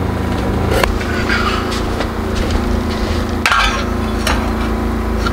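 A few sharp knocks of a knife on a wooden cutting board and a pot on a camp gas stove, the loudest about three and a half seconds in, over the steady hum of a small portable generator's engine.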